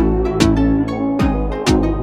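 Background music: a rhythmic track with plucked guitar over a steady beat.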